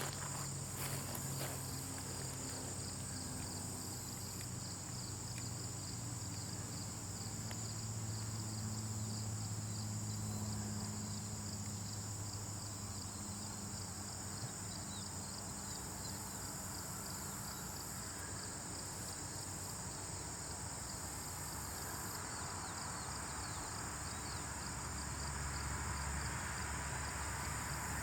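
Steady high insect chirring over a low hum, with a few faint ticks in the first seconds. Near the end a broad rushing noise slowly rises.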